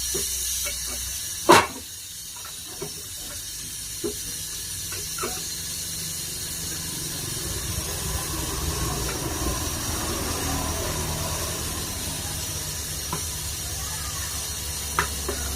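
Hands fitting a charging pipe to a refrigerator's pipework: one sharp metallic click about a second and a half in, then a few lighter taps, over a steady hiss and a low hum.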